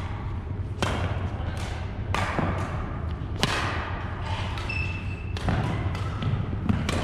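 Badminton rackets striking shuttlecocks: about five sharp, echoing cracks at uneven spacing, over a steady low hum of the gym. A brief sneaker squeak on the hardwood floor comes about five seconds in.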